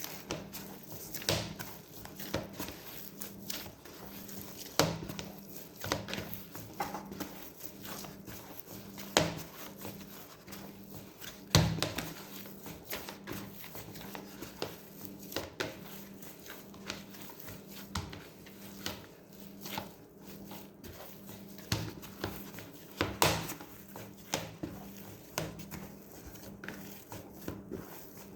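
Bread dough being kneaded by hand, with irregular soft thumps and slaps of the dough against the work surface, some in quick clusters, as the buttered dough is worked until it stops being sticky.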